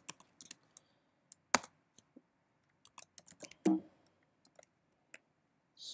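Typing on a computer keyboard: irregular single keystroke clicks with short pauses between them as a command is typed, one louder keystroke about a second and a half in.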